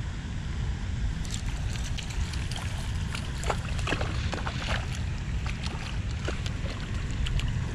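Wind rumbling on the microphone, with irregular light clicks and ticks from about a second in as fly line is handled and stripped in by hand.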